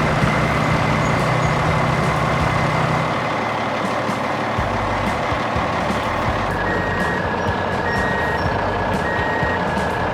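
Heavy construction vehicle engine running steadily, with a reversing alarm sounding three short beeps about a second apart in the second half.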